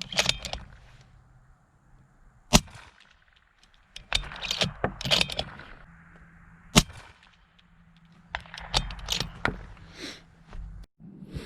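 Two sharp cracks about four seconds apart, the first the loudest, with smaller clicks and knocks of handled gear around them.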